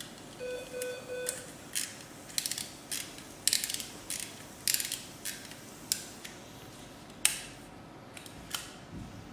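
Endoscopic linear stapler with a green cartridge being squeezed and fired to transect the rectum: a run of sharp, irregular ratcheting clicks, about a dozen over several seconds. A short electronic beep tone sounds about half a second in.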